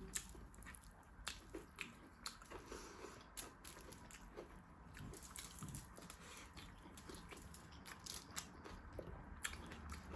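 Close-up eating sounds: chewing and biting, with many quick irregular clicks and smacks of the mouth and food.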